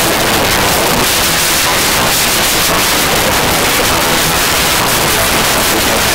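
Loud, steady hiss like static, even across high and low pitches.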